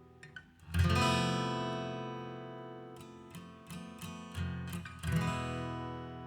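Background music on acoustic guitar: a strummed chord about a second in that rings out and fades, a few lighter plucked notes, then another strummed chord ringing out.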